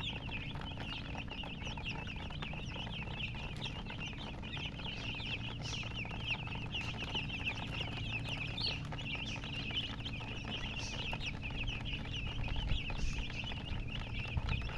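A brood of baby chicks peeping continuously, many short high chirps overlapping into a dense chorus.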